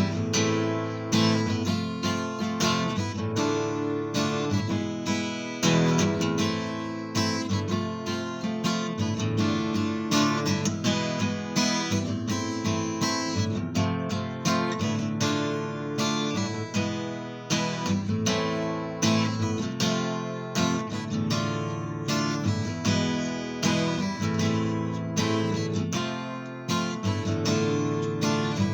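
Acoustic guitar playing an instrumental arrangement of a pop-rap song, strummed and plucked chords with a melody picked over them.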